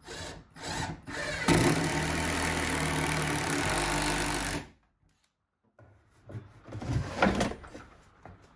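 A power tool motor runs steadily for about three seconds and stops suddenly. After a short pause there is wood rubbing and knocking.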